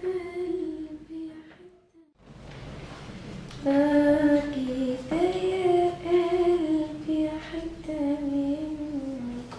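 A singing voice carrying a slow melody in long held notes. It breaks off for a moment about two seconds in and comes back a second or so later.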